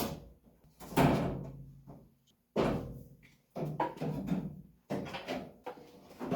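A series of about six sharp knocks and thuds, irregularly spaced, each dying away with a short ring: hand work on the oil cooler hose and fittings.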